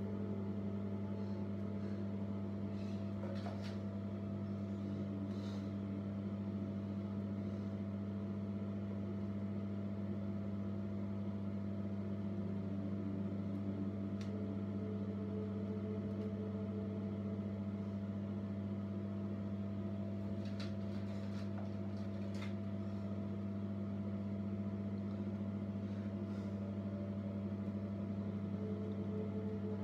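A steady low electrical hum, like a small motor or fan running, with a few faint clicks and rustles of hair being handled and pinned.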